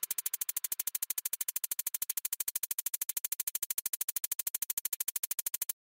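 Rapid, even electronic pulsing, about eleven clicks a second and mostly high-pitched, which stops abruptly near the end.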